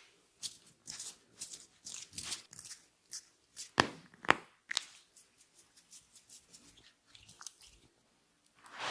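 Massage sounds: a quick series of short brushing and patting sounds of hands working on skin, then three sharp cracks about half a second apart, about four seconds in, typical of joints being cracked during the massage.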